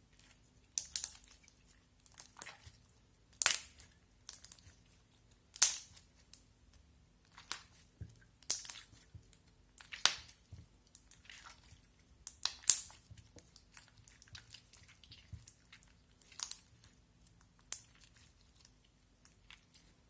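Popcorn putty slime being squeezed and pressed by hand, giving sharp crackling pops about every second or so.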